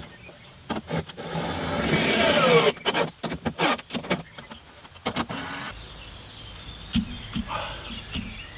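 A small electric motor whirs for about a second and a half, with its pitch falling. Then comes a quick run of clicks and knocks lasting a couple of seconds.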